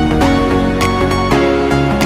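Background music: sustained synth-like chords over a steady beat.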